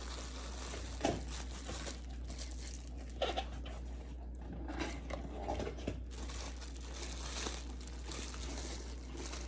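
Plastic bags and packaging crinkling as small supplies are handled, with a few light clicks and taps.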